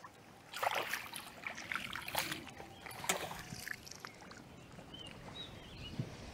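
Water splashing and dripping, with a few sharp knocks, as a bass is brought to the boat in a landing net.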